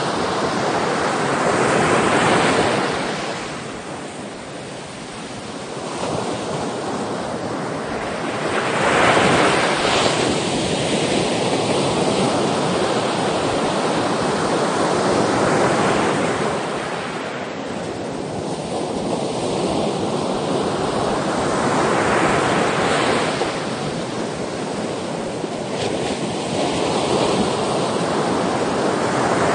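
Sea waves breaking and washing up, a loud rushing surf that swells and falls back about every six to seven seconds.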